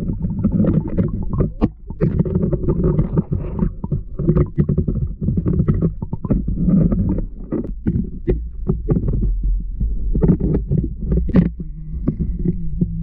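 Muffled underwater audio from a camera submerged below an ice-fishing hole: a steady low rumble with many irregular knocks and clicks.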